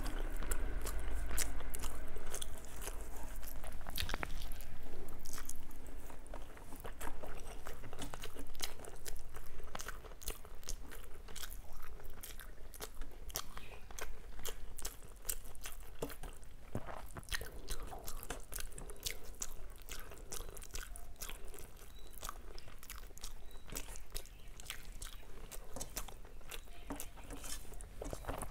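A person chewing mouthfuls of rice and curry close to the microphone, with many quick mouth clicks. It is louder for the first ten seconds or so, then softer.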